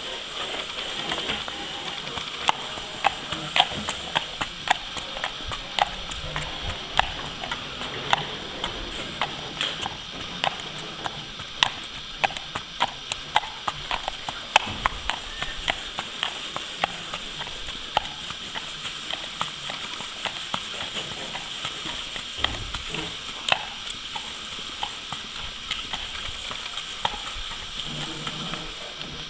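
Hooves of a ridden grey mare walking on tarmac: a steady clip-clop of sharp hoof strikes. The strikes grow fainter in the second half as she walks away.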